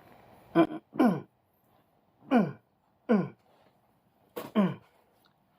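Short vocal sounds from a person: about five brief utterances, each falling in pitch, spaced a second or so apart with quiet between.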